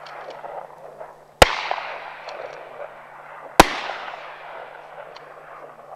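Two shotgun shots about two seconds apart, each very loud and followed by a long fading echo.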